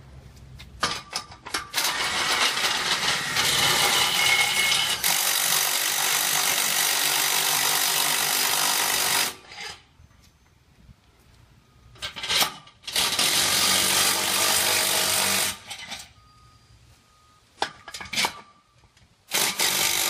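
Cordless impact driver on a long socket extension, running nuts down the all-thread rods that tension the bottom of a fabric side panel. One long run of about seven seconds, then a short burst, a run of about two and a half seconds, and a few short bursts near the end.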